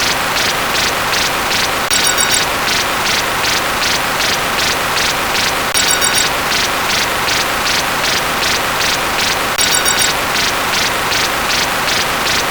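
Sound effects played back sped up and layered into a dense hiss, pulsing about three times a second, with a brief bright cluster of high tones three times, about every four seconds.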